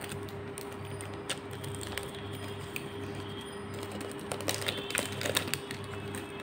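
Clear plastic wrapping on an EZVIZ dome camera crinkling and clicking as the camera is handled, with scattered crackles that come thickest about four to five seconds in. A steady low hum runs underneath.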